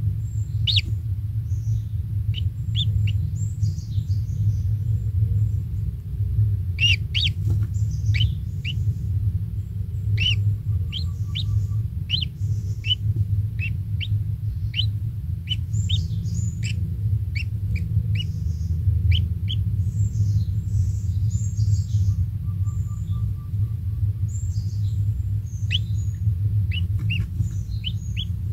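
Bird chirping: many short, high chirps that drop sharply in pitch, coming in quick irregular runs, over a steady low rumble.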